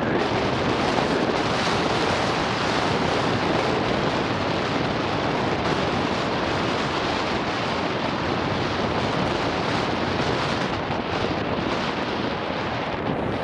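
Steady rush of wind buffeting an action camera's microphone on a mountain bike riding fast down an enduro stage, mixed with tyre noise and a constant patter of small knocks and rattles from the rough trail.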